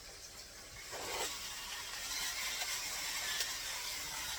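Chicken breasts frying in bacon grease: a steady sizzle with small crackling pops, growing louder about a second in.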